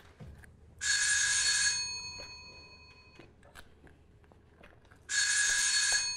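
Electric doorbell rung twice, about four seconds apart; each ring is a bright bell sound lasting about a second, followed by a short fading ring.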